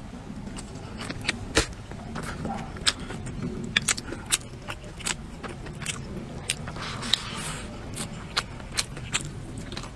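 Close-up eating sounds: a run of short, sharp clicks and crunches, irregular and several a second, over a low steady background.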